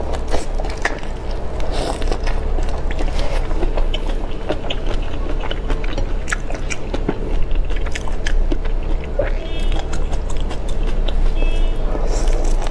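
Close-miked eating of whole soy-marinated shrimp: many small wet clicks and crunches as shell and flesh are bitten and chewed, over a steady low hum.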